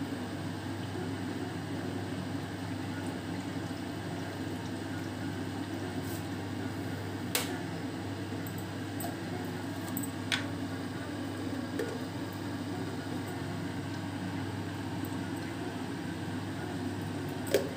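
Steady low kitchen hum under oil heating in a kadai, with three sharp clicks of a steel slotted spoon against the pan. The clicks come a third of the way in, again a few seconds later, and loudest just at the end.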